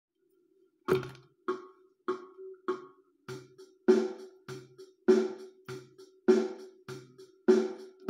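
Music: a drum beat, one struck hit about every 0.6 seconds over a faint held low note, starting about a second in.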